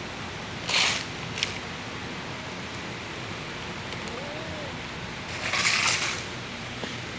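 Two short rustling scrapes as pieces of cat food are scattered across a concrete floor, the second longer than the first, over a steady hiss. A faint short cat meow comes about four seconds in.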